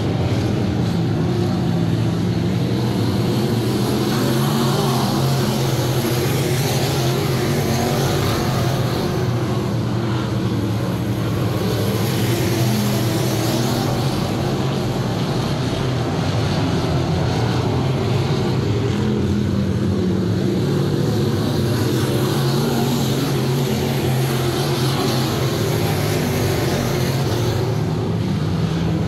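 A pack of sport modified dirt-track race cars at racing speed, their V8 engines blending into one loud, steady drone whose pitch wavers as the cars go round the oval.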